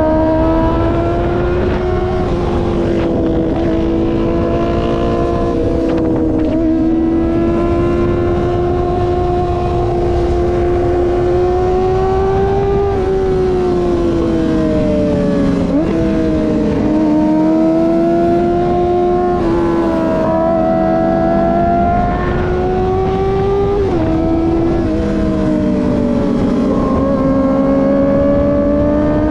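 Kawasaki ZX-25R's high-revving 250 cc inline-four engine running under way, its pitch rising and falling with the throttle, broken by several quick jumps in pitch at gear changes, over a steady low rush of wind and road noise.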